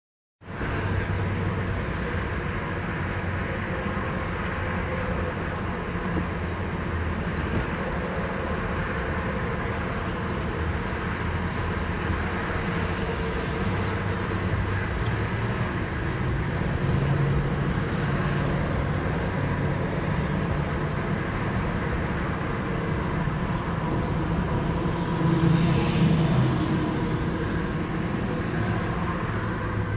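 Car driving at speed on a highway bridge: steady tyre and road noise with a low engine hum. It swells for a moment near the end.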